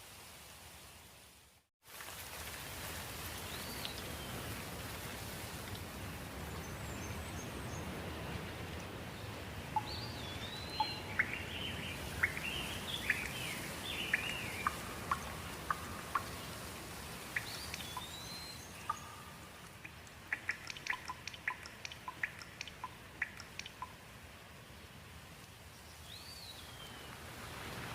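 Steady light rain with birds calling over it: single arching chirps every few seconds and a busier burst of twittering in the middle, followed by a run of quick sharp ticks. The rain briefly cuts out about two seconds in.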